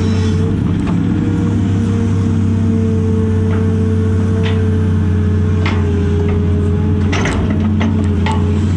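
Cat 330 excavator's diesel engine and hydraulics running steadily under load, heard from inside the cab as a constant drone. A few short knocks and rattles come through, clustered about seven seconds in.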